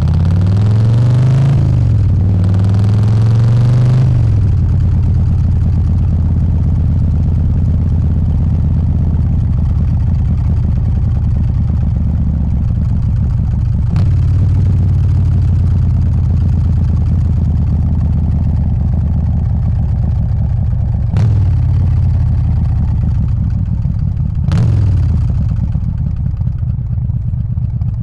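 Harley-Davidson Softail's 124 cubic inch S&S Evo V-twin engine accelerating, its revs rising, dropping at a gear change, and rising again over the first few seconds, then cruising steadily. Three sharp knocks sound along the way, the last two close together late on.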